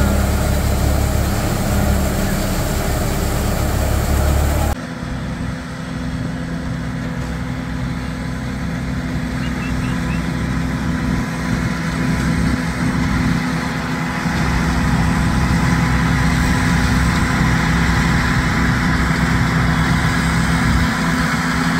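Rice combine harvester running, a steady engine drone. About five seconds in the sound changes abruptly to the machine heard further off across the field, and it grows louder toward the end as the harvester comes closer.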